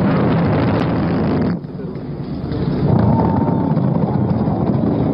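Deep, steady roar of the GSLV Mark III rocket's two S200 solid boosters as it climbs away after liftoff. The roar dips suddenly about one and a half seconds in, then builds back up.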